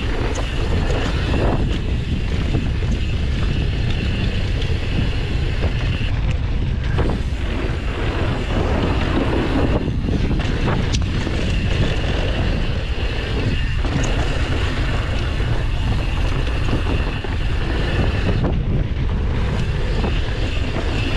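Wind buffeting the camera microphone on a downhill mountain bike run, over a steady rumble from the bike on the trail, with a few scattered clicks and knocks.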